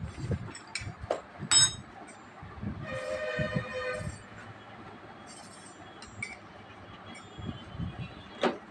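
Knocks and handling noise from a bicycle being turned over with its front wheel spinning, with a short loud metallic ring about a second and a half in. About three seconds in a steady horn-like tone sounds for about a second.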